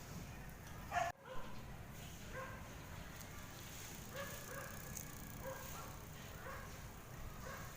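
A dog barking faintly and repeatedly, short yaps every half second to a second, with a brief click about a second in.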